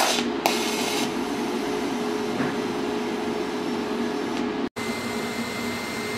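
TIG welding arc on a stainless steel exhaust pipe, sealing a crack: a steady buzzing hum, with a sharp crackle right at the start and a second crackling burst lasting about half a second just after. The sound drops out for an instant near the end and picks up again with a faint, thin high whine over the hum.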